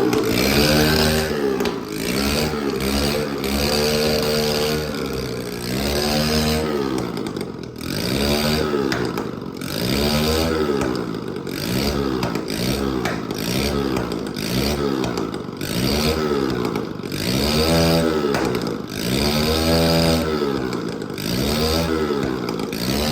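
Motorcycle engine of a Hero Splendor-based bike revved over and over through a homemade exhaust silencer, its pitch rising and falling about every second and a half.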